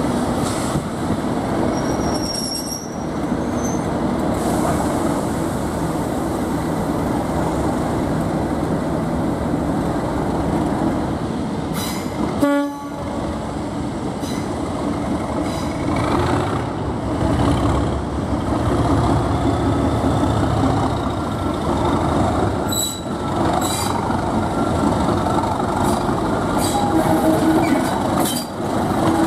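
Class 37 diesel locomotive's English Electric V12 engine working as the locomotive pair pulls away, a steady deep drone that grows stronger about two-thirds of the way through, with a faint rising whistle over it and a few sharp clicks from the wheels on the rails later on.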